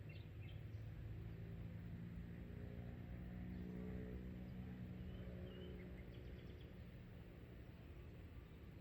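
Faint engine drone, a low hum with several overtones that grows louder toward the middle and fades again, like a motor passing at a distance. A few faint bird chirps come over it.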